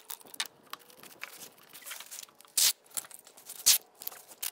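Tyvek house-wrap tape being pulled off the roll and pressed onto the house wrap: a series of short rips and crinkles, the loudest about two and a half and three and a half seconds in.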